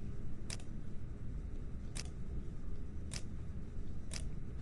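Computer mouse clicking four times, about a second apart, over a steady low background hum.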